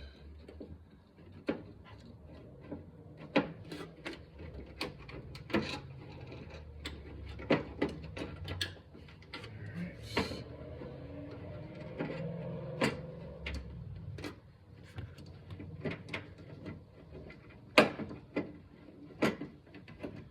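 Irregular clicks and light knocks of small parts being handled and fitted while a trunk release actuator and its cable are refitted, over a low steady hum.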